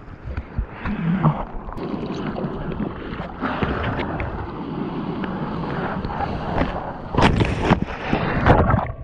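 Seawater sloshing and splashing close against a mouth-mounted action camera as a bodyboarder paddles through surf. About seven seconds in, louder splashes break out as whitewater washes over.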